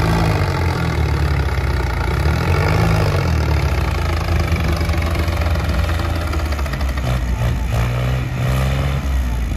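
Diesel tractor engines of a Sonalika DI-35 and a New Holland 3630 running steadily under heavy load as they pull against each other, their pitch wavering slightly.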